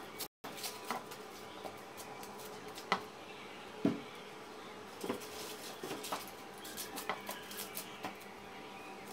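Knife cutting and peeling an onion held in the hand, with scattered small crisp clicks and crunches, and onion pieces dropping into a plastic bowl. Two louder knocks come about 3 and 4 seconds in.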